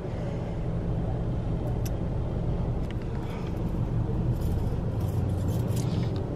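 Car engine idling, heard from inside the cabin as a steady low rumble, with a few faint clicks and rustles.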